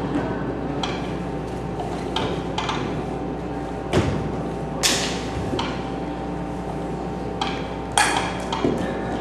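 Sharp knocks and taps at irregular moments, the loudest about four, five and eight seconds in, over a steady hum.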